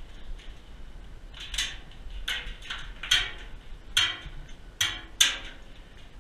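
Footsteps on a gritty floor inside a small corrugated-metal shed: six short, sharp scuffing ticks, roughly one a second.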